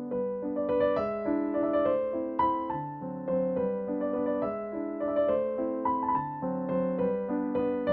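Soft background piano music: a slow, gentle melody of ringing notes over held chords.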